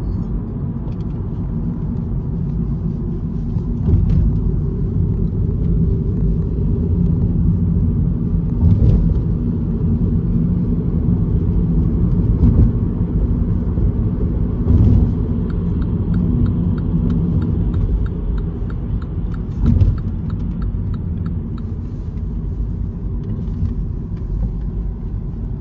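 Road noise inside a moving car's cabin: a steady low rumble of engine and tyres, with a few brief louder thumps. A faint regular ticking runs for a few seconds past the middle.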